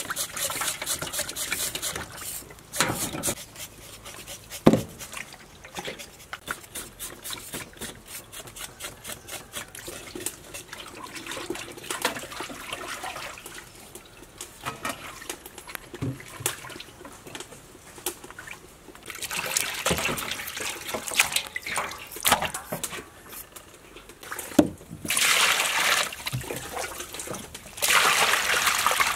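Short scraping strokes and light knocks of a knife peeling and cutting vegetables. Near the end, tap water runs and splashes over pork being rubbed clean by hand in a basin.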